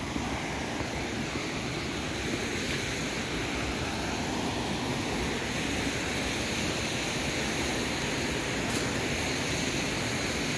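A fast-flowing stream rushing steadily.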